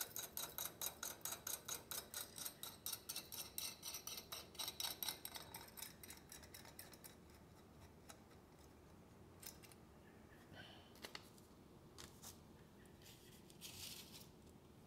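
Faint, fast, even metallic clicking, about four clicks a second, as a ratchet wrench tightens a nut on a trailer mounting bolt. The clicking stops about seven seconds in, leaving a few scattered clicks and taps.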